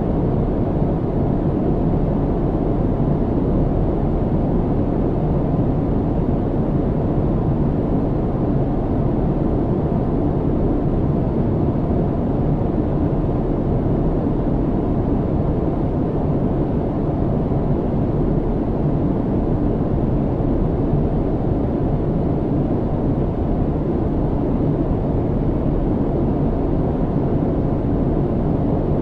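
Steady airliner cabin noise in flight: a deep, even rumble of engines and airflow that does not change.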